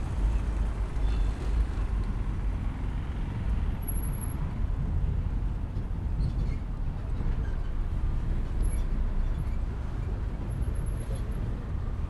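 Steady rumble of road traffic passing by.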